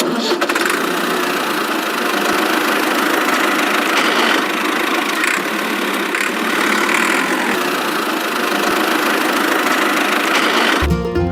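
A motor running steadily, noisy and without a clear pitch, until it cuts off near the end.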